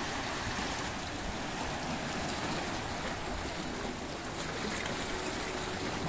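Sea surf washing and swirling between shoreline rocks, a steady rushing of water.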